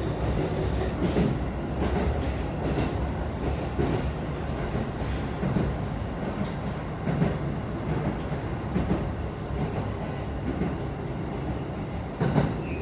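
Running noise of a Keikyu 1000 series train heard from inside the carriage: a steady rumble of wheels on rail, with a regular clack from the wheels over rail joints about every second and a half to two seconds.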